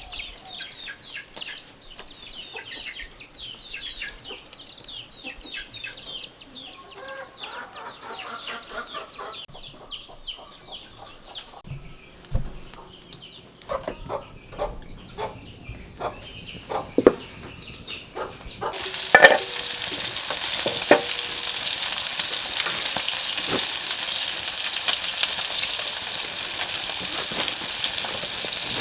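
Chickens calling with rapid high chirps, then a few knocks and clatters of cookware. About two-thirds of the way through, food goes into hot oil and a steady sizzle of frying sets in.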